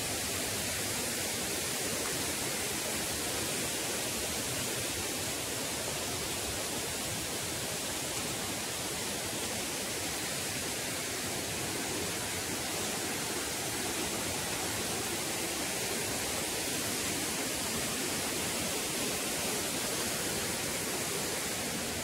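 Steady rush of a waterfall and river: an even, unchanging wash of falling water.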